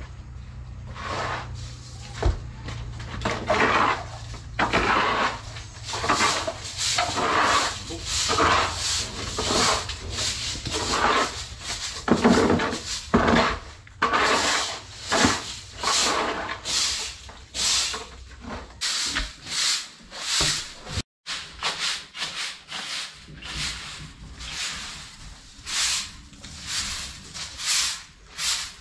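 A stiff broom sweeping a concrete floor in quick, repeated scraping strokes, about one to two a second.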